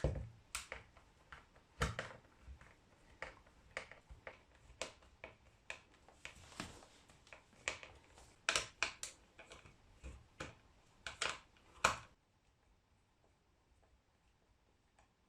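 Irregular clicks and small knocks of a screwdriver working the screws around the plastic housing of a KVT TT-2000 heat gun, with the body being handled. The clicking stops about twelve seconds in.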